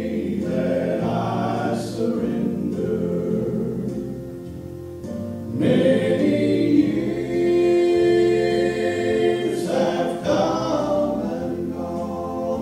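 Male vocal trio singing a gospel song together in harmony through microphones. It eases off briefly about four seconds in, then swells back up with long held notes.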